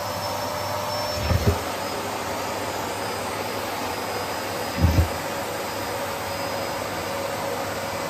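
Bosch BGS21X320 bagless canister vacuum cleaner running steadily with a faint whine over its airflow noise, its bare hose wand sucking socks off the floor. Two dull low thumps stand out, one about a second in and one about five seconds in.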